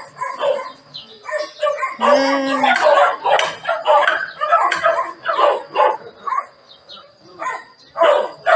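A pack of male dogs barking and yelping as they fight over a female, in quick irregular bursts, with one longer drawn-out yelp about two seconds in.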